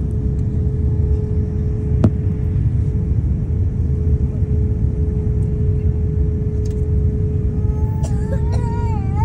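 Airbus A350-900 cabin noise at a window seat over the wing: a steady low rumble with a constant hum, and a single click about two seconds in. Near the end a wavering, whining call with overtones starts up over it.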